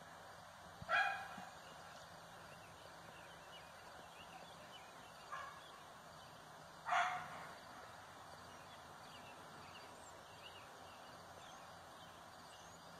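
An animal calls twice, briefly and fairly loudly, about a second in and again about seven seconds in, with a fainter call between them. Each call is a short pitched cry that stands well above a steady low outdoor background.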